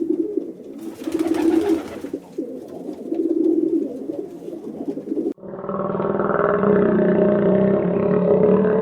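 Pigeon or dove cooing in low repeated phrases. About five seconds in, it cuts off abruptly and a steady, low droning sound from another recording takes over.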